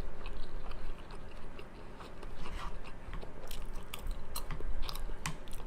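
A person chewing a mouthful of steamed dumpling close to the microphone, with irregular wet mouth clicks and smacks.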